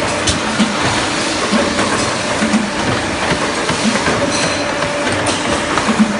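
DMS 20 CNC M1 pipe bending machine running: a steady mechanical noise with a clack about once a second.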